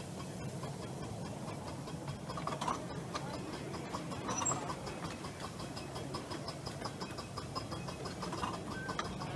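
Light railway train running along the track, heard from on board: a steady rumble with a fast, regular ticking, briefly louder twice in the first half.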